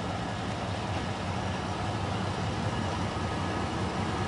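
Diesel engine of a DR class 772 railbus (Ferkeltaxe) running with a steady low drone as the railcar rolls slowly toward the platform.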